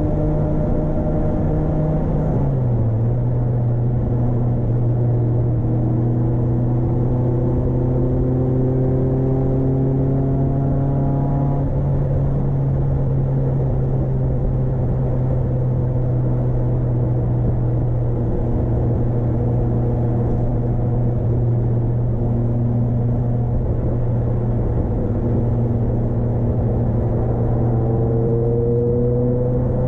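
Proton Wira's 1.6-litre 4G92P inline-four engine running under way with steady road noise; its pitch climbs slowly for about ten seconds, drops, holds, then starts climbing again near the end.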